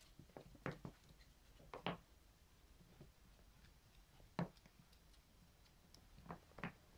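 Faint, scattered taps and knocks of a Schipperke puppy scrambling on a wooden floor with a rubber slipper, about half a dozen in all, with one sharper knock about four and a half seconds in.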